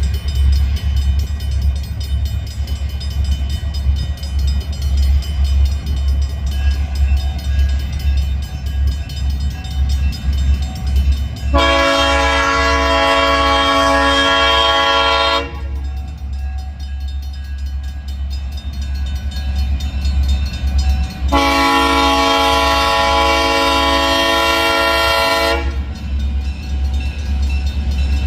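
Great Lakes Central diesel locomotives passing, their engines rumbling steadily, with two long blasts of the lead locomotive's air horn sounding a chord of several notes: the first about twelve seconds in, the second about twenty-one seconds in, each about four seconds long.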